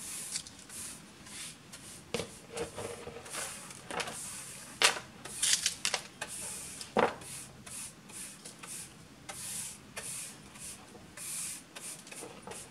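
Hand brush sweeping wood shavings and debris across a workbench top into a plastic dustpan: repeated quick bristle swishes, with a few sharper knocks.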